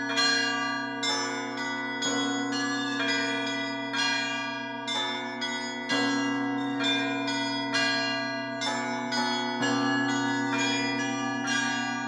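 Russian church bell peal (zvon): several bells rung together in a repeating pattern, a deep bell struck every few seconds under quick, rhythmic strikes of smaller, higher bells, each note ringing on.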